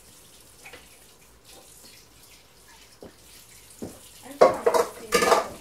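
Water running from a kitchen tap into a sink, faint at first, then loud splashing for about a second near the end.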